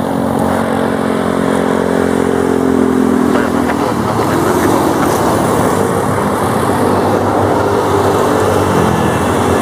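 Twin turboprop engines of a CASA NC-212 Aviocar running, a loud steady propeller drone whose pitch sinks slightly over the first few seconds.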